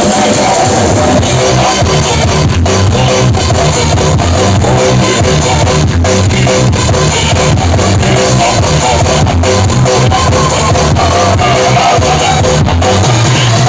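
Loud rock-style music with guitar and drums played through a large carnival loudspeaker rig during a sound check, with strong bass.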